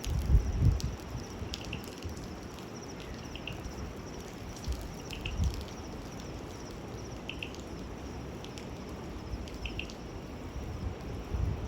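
Outdoor ambience: a steady hiss with short, high chirps every second or two from a small calling animal, insect or bird. A few low thumps come near the start, around the middle and near the end.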